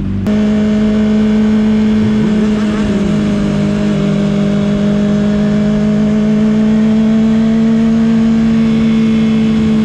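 Honda CBR600RR sport bike's 600 cc inline-four engine running at steady high cruising revs under way, its note slowly creeping up in pitch. A second engine note briefly rises and falls about two to three seconds in.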